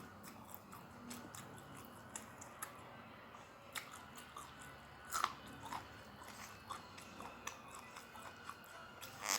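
A person chewing a mouthful of rice, fried egg and peanut sambal close to the microphone, with irregular crisp crunches; the loudest crunches come about five seconds in and near the end.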